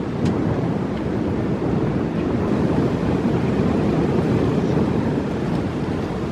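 Strong wind buffeting the microphone: a loud, dense low rumble with no clear engine note.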